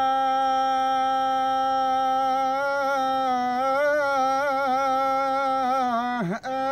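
A man's voice singing one long held note with a slight waver, breaking off briefly about six seconds in before the note picks up again: the drawn-out opening cry of a sung folk poem.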